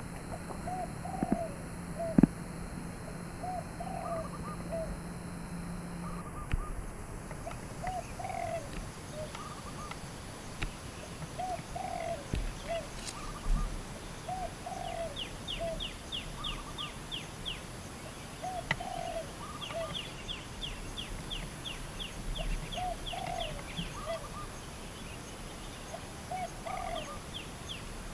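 Spotted doves cooing, a short phrase repeated about every two seconds. From about halfway on, another bird joins in a few times with a rapid run of high notes, about four a second. A single sharp click about two seconds in.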